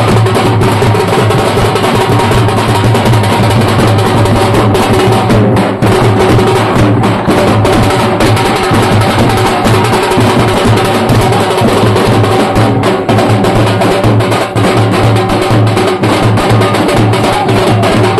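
A group of large shoulder-slung drums beaten with sticks, playing a loud, unbroken processional rhythm.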